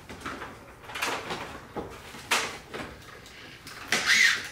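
Plastic front-grille parts being handled by hand: a few short scraping and rattling sounds, the loudest near the end with a brief higher-pitched squeak.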